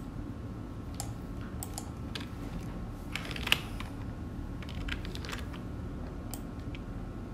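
Scattered clicks and taps of a computer keyboard and mouse, a few at a time with short gaps, the sharpest about three and a half seconds in, over a low steady hum.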